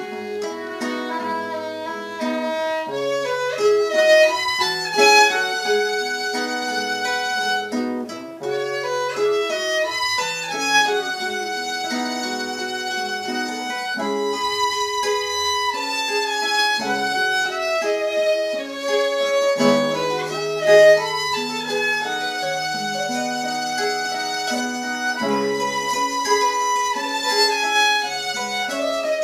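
Instrumental music with no singing: a violin plays the melody over plucked-string accompaniment, guitar-like, in a steady flow of notes.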